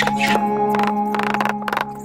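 Background music: held tones with sharp percussive hits laid over them.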